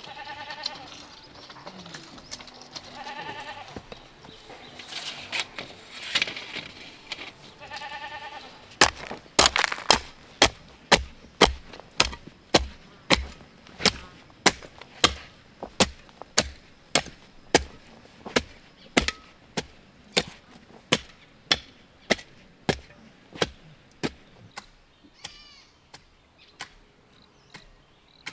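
A farm animal bleating several times, then a long run of sharp blows at about two a second, which grow weaker near the end.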